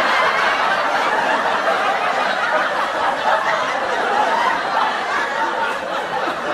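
Studio audience laughing and chattering, many voices at once in a steady crowd.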